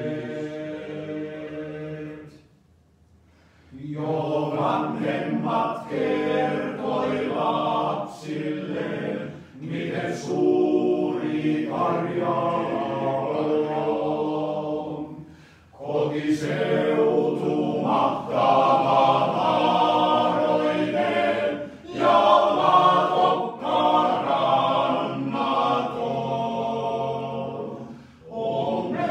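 Male voice choir singing a cappella in long phrases, with a short pause about three seconds in and brief breaths between later phrases.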